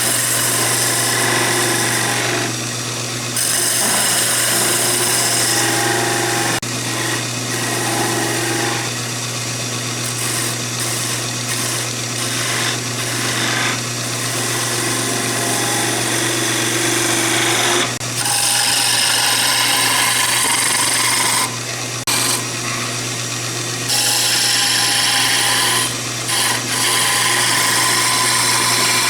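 Conover wood lathe running with a steady motor hum while a hand-held turning tool cuts into a spinning chair leg. The cutting noise drops out briefly several times as the tool is lifted off and repositioned.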